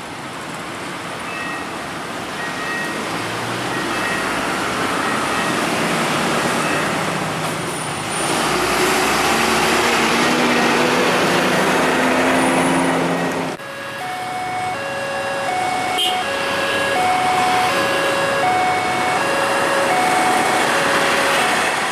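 A railway level-crossing alarm rings its alternating two-tone signal over the loud rush of a train passing close at speed. The rushing builds over the first eight seconds, then drops off suddenly about halfway through. After that the alarm rings on, clearer and louder, over a continuing rumble.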